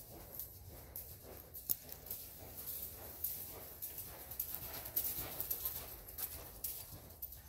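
A horse trotting and cantering on soft indoor-arena footing: irregular, muffled hoofbeats.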